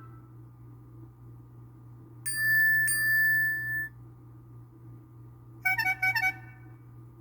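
iPhone 6s built-in tones previewed one after another. About two seconds in, a bell-like chime is struck twice and rings for about a second and a half. Near the end comes a quick run of short marimba-like notes.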